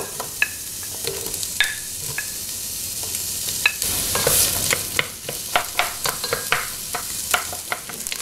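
Chopped onions sizzling in hot coconut oil in a pan, with a utensil clicking and scraping against the pan as they are stirred. The sizzling surges louder about four seconds in.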